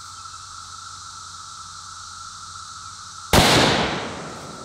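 A single shot from a Savage Axis .308 bolt-action rifle about three seconds in: a sudden loud crack whose echo dies away over about a second.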